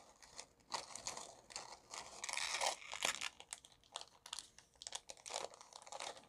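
Faint, irregular crinkling and rustling of a small clear plastic zip-lock bag being handled.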